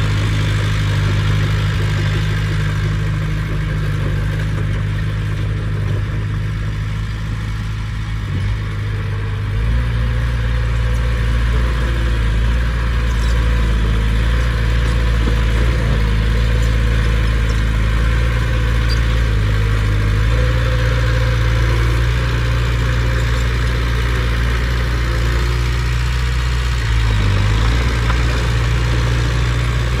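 Bulldozer's diesel engine running steadily. Its note changes about ten seconds in and again a few seconds before the end.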